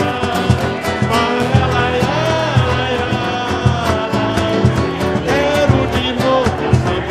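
Upbeat music with a steady drum beat and a gliding melody over it.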